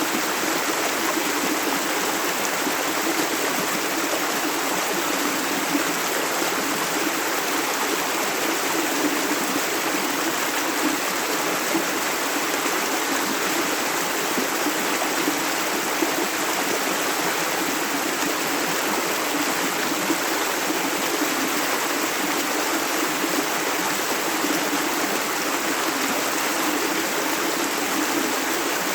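A shallow, clear river running over stones: a steady rush of flowing water with constant small gurgles and splashes.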